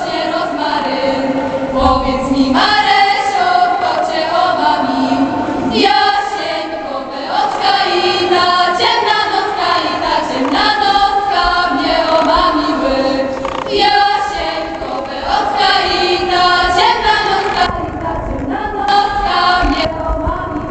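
A women's folk choir singing a Polish folk song a cappella, in phrases with short breaths between them. The singing ends about three seconds before the end.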